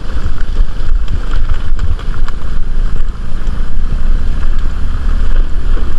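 Steady wind rumble on the microphone while riding a motor scooter, with the vehicle's running and road noise underneath and a few light knocks.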